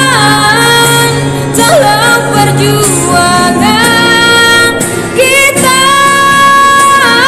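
A young woman singing, holding long notes that slide and bend between pitches.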